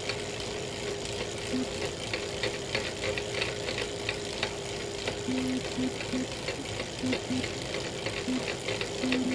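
Elite Real Turbo Muin B+ bike trainer running under pedalling, a steady whine with rapid, irregular crackling clicks over it. This is the cracking noise the owner reports from the trainer at any cadence once power goes above 200 watts, a fault.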